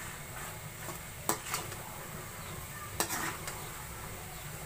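A steel spoon stirring and scraping a thick chana dal and spinach mix in a pan over a low, steady sizzle. The spoon clinks against the pan a few times, about a second in and again about three seconds in.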